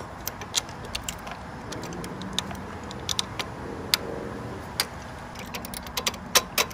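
Small metal parts clicking and clinking irregularly as bolts, washers and a spacer are handled and fitted to a metal exhaust-hanger bracket on a motorcycle frame, with a quicker run of clicks near the end, over a steady low background noise.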